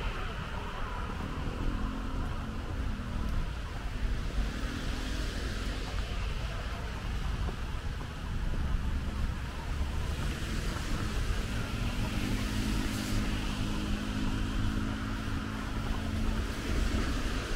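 Steady background of distant road traffic on wet roads, with a low rumble throughout and a faint engine drone that comes and goes twice.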